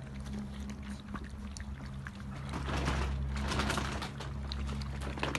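A litter of puppies eating from one shared bowl: many small wet clicks of chewing and lapping, thickest about halfway through, over a steady low hum.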